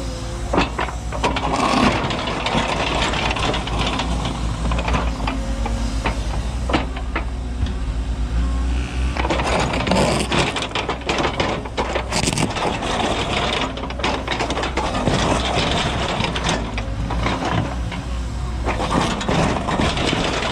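Cat 314E excavator's diesel engine running steadily under load while the ripper tooth scrapes, grinds and clanks through hard bluestone rock, the scraping swelling and dying away in several stretches.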